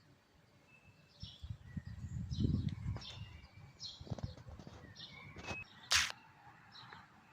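Small birds chirping in short, high calls throughout, over a low rumble between about one and three and a half seconds in. A single sharp click about six seconds in is the loudest sound.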